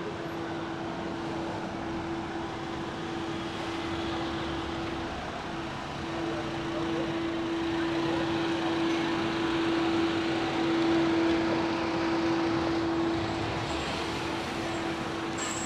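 City street ambience: a car driving slowly past along the street, loudest about two-thirds of the way through, over a steady hum that holds one pitch throughout.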